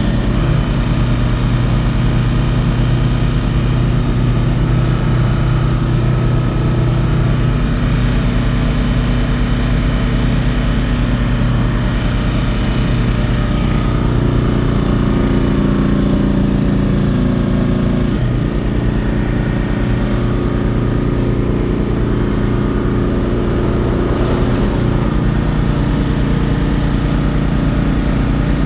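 Komatsu excavator's diesel engine running steadily. Its pitch changes for a few seconds about halfway through, then drops back suddenly.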